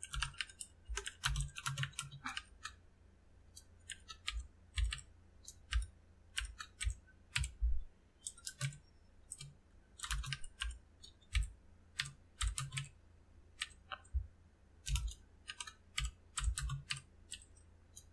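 Typing on a computer keyboard: irregular key clicks in short runs, with a pause of about a second a few seconds in.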